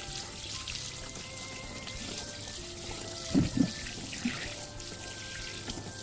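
Soft background music over a steady sound of running water, with two dull thumps about three and a half seconds in.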